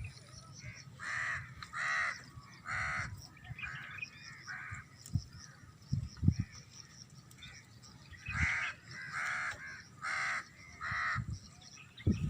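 A crow cawing in two series of four or five harsh calls each, about one call a second. The second series begins about eight seconds in.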